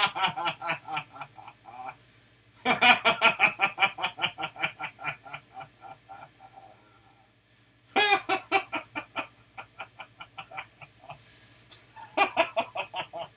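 A man laughing hard in cackling bouts of quick repeated 'ha' pulses. Each bout starts loud and trails off. A bout is ending at the start, and new ones begin about three, eight and twelve seconds in.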